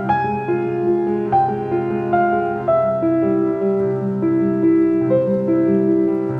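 Slow instrumental piano music, with a melody moving note by note over held low notes.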